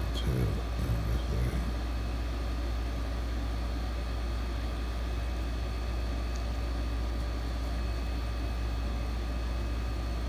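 A steady low hum with faint steady high whine tones running under it, and a few soft handling knocks in the first second and a half.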